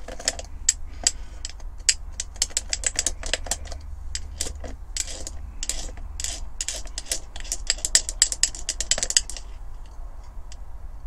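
Metal clinking and rattling against a glass jar as a diecast model body is worked up and down in a jar of caustic soda stripper. It is a rapid, irregular run of clicks that stops about nine seconds in.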